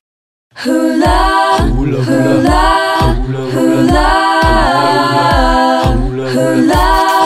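Background music: wordless sung chords over a steady bass beat of about two pulses a second, starting after a brief silence about half a second in.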